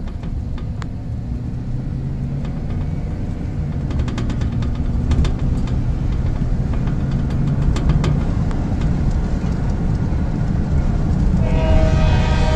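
Car tyres rolling on a gravel road, heard from inside the cabin as a steady low rumble with scattered clicks of stones. A sustained pitched tone with many overtones begins near the end.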